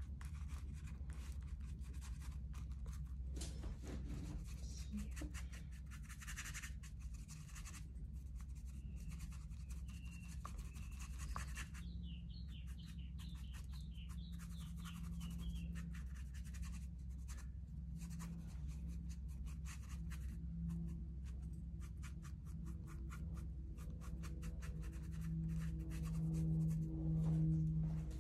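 Acrylic paint being worked onto a painting surface: a tool scratching and rubbing in many quick, irregular strokes over a steady low hum.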